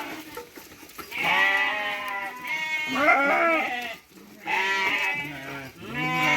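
Sheep bleating: four long calls one after another, the second one higher-pitched and quavering.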